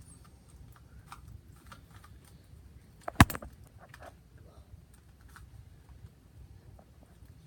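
Rubik's cube being turned by hand, its layers giving off scattered light clicks, with one much louder sharp knock about three seconds in.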